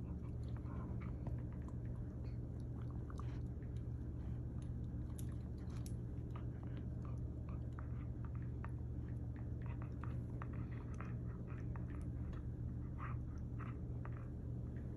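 A Goldendoodle gnawing on a rawhide-free chew stick: many short, irregular crunching and clicking bites, over a steady low hum.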